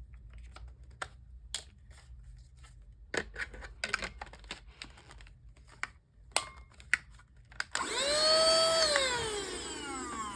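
Clicks and knocks of a handheld rechargeable car vacuum cleaner being handled, then near the end its motor starts with a high whine, runs about a second and winds down in falling pitch as it is switched off.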